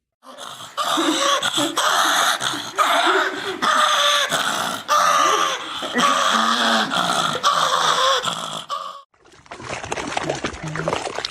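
A dog vocalising loudly for several seconds with drawn-out, wavering growls and grunts that rise and fall in pitch, cutting off sharply. After the cut a short stretch of rushing, splashing-like noise follows.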